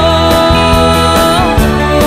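Background music: a song, with one long held note lasting about a second and a half before the melody moves on.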